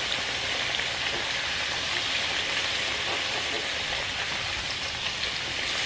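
Whole mojarra fish frying in a pan of hot oil: a steady sizzle with faint small pops of spattering oil.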